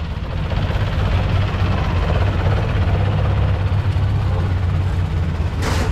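Boat engine running with a steady low rumble, and a brief sharp noise near the end.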